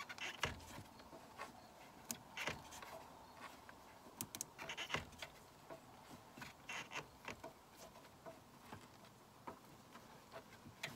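Faint, scattered clicks and light metal scrapes of a hand-turned T-handle Torx driver snugging a diverter-valve bolt, bunched in a few short clusters.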